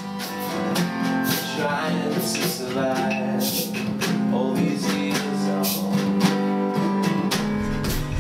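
Music: an acoustic guitar strummed in a steady rhythm, with deeper low notes joining about seven seconds in.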